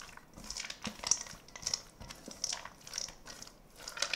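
A utensil mixing chunky chicken salad with mayonnaise dressing in a bowl: a series of soft, irregular squishing and scraping strokes.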